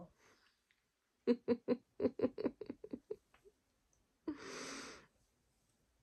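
A girl giggling: a quick run of about a dozen short laughs that fade away, followed about a second later by one breathy exhale.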